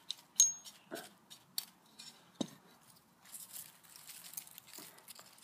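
A few sharp clicks and taps, the loudest about half a second in, then faint rustling from about three seconds in, as a freshly dug garlic bulb with loose, disintegrating skin is handled.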